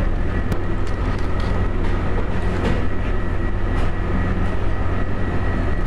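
Steady low machine hum with a thin, steady high whine over it, and a few faint clicks scattered through.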